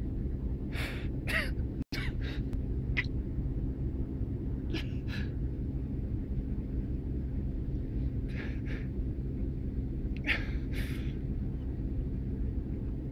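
Rottweiler whimpering in short, breathy, high-pitched cries, mostly in pairs, about four times, over the steady low rumble of a car's running engine.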